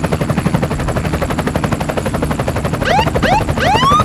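Helicopter rotor sound effect: a fast, steady chopping over a low hum. About three seconds in, a looped figure of rising synth glides (two short, one long) joins it.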